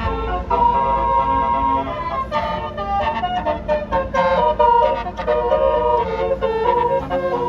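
A bus's Basuri telolet horn playing a quick tune of changing notes over the low rumble of the bus's engine.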